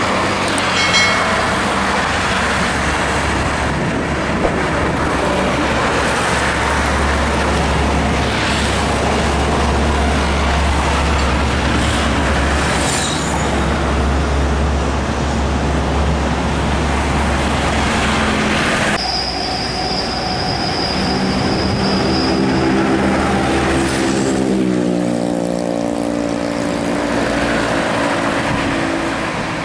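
Heavy diesel trucks and motorcycles passing along a highway: a deep engine rumble with tyre noise. Partway through, a high steady squeal lasts about three seconds. Then a truck engine's note rises as it pulls away.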